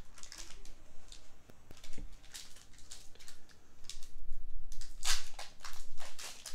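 Pokémon trading cards and a foil booster-pack wrapper being handled: a run of short crinkles and rustles, louder around five seconds in.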